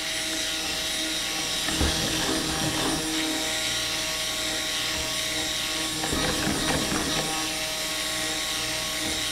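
Electric stick blender running steadily with a constant motor whine, submerged in a pitcher of cold-process soap batter and blending it past emulsification.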